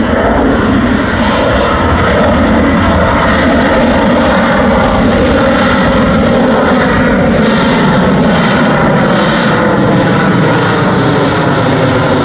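AV-8B Harrier II jet flying overhead, its Rolls-Royce Pegasus turbofan giving a loud, steady roar with slowly gliding tones. The sound grows brighter and hissier over the second half as the jet comes closer.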